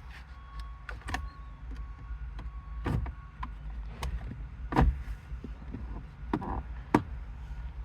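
Sharp plastic clicks and knocks from the gear shifter's trim pieces being pried and pulled off, about six spread a second or two apart over a steady low rumble.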